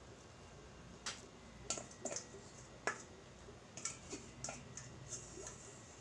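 Spatula scraping and knocking against a stainless steel mixing bowl while cookie dough is scraped out: an irregular string of sharp clicks and short scrapes, starting about a second in.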